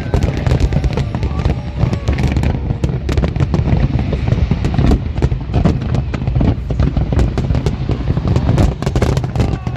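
Fireworks display: many bangs and crackles in quick, overlapping succession over a heavy low rumble, with no let-up.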